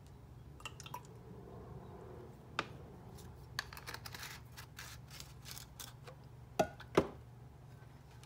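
Kitchen handling sounds of utensils, a bottle and a glass being moved on a countertop: scattered light clicks and taps, with two sharper knocks near the end, over a faint steady low hum.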